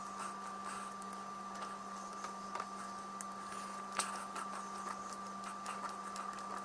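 Faint clicks and taps of fingers working softened polymorph thermoplastic into a hole in an MDF mould, with one sharper click about four seconds in. Under them runs a steady hum with a higher steady tone above it.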